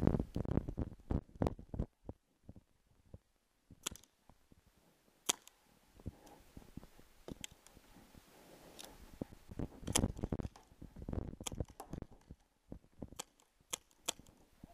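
Tippmann TiPX paintball pistol shots going off sporadically, about ten sharp pops spread over the stretch, some close and some farther off. Dense low knocking and rustling comes near the start and again about ten seconds in.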